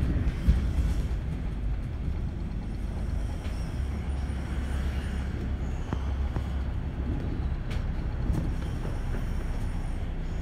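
Double-decker bus on the move, heard from inside on the upper deck: a steady low engine and road rumble with a few light knocks.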